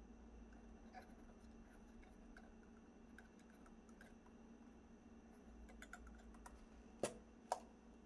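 Near silence: faint room hum with a few light ticks of small parts being handled, then two sharp clicks about half a second apart near the end.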